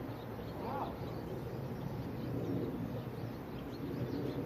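Birds chirping in the background, many short chirps, over a low steady hum.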